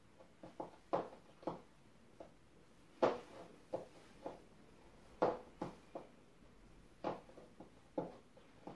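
High-heeled platform stiletto pumps knocking on a laminate floor in irregular steps as the wearer turns and shifts her stance, with the sharpest knocks about three and five seconds in.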